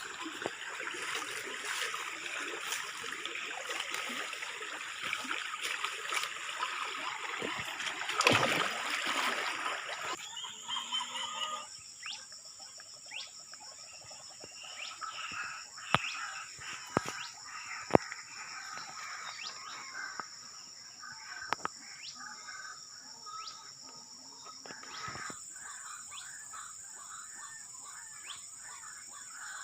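Outdoor ambience with a steady high insect buzz. For the first ten seconds there is rustling, with a strong swoosh about eight seconds in, followed by three sharp clicks about a second apart midway.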